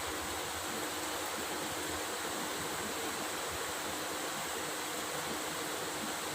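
Heavy rain falling steadily, an even hiss with a faint low hum under it.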